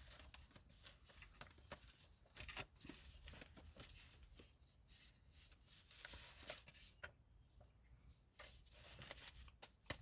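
Near silence broken by faint, scattered rustles and clicks of tarot cards being handled.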